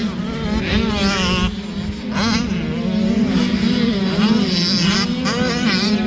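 Several motocross dirt bike engines running at once, revving up and down over a steady drone.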